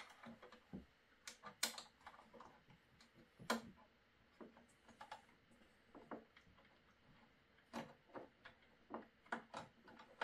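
Faint, irregular small clicks and ticks of a hex wrench working a transport screw loose inside a 3D printer, with the metal key and screw tapping against the frame.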